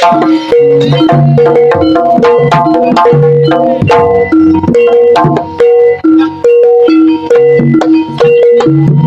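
Live Jaranan accompaniment music: drums struck in quick succession under pitched, ringing gong-chime notes that repeat in a cycling pattern.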